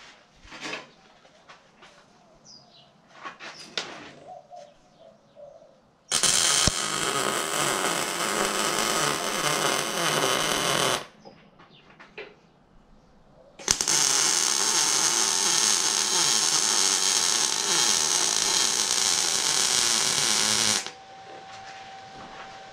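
Electric arc welding on steel: two runs of steady arc crackle, about five seconds and then about seven seconds, each starting and stopping abruptly. Light clinks and knocks of metal being handled come before the first run.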